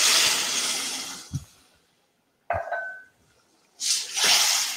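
Stock poured into a hot pot of frying rice, hissing and sizzling, then dying away after about a second and a half. Near the end the sizzle comes back as the pot is stirred with a wooden spoon.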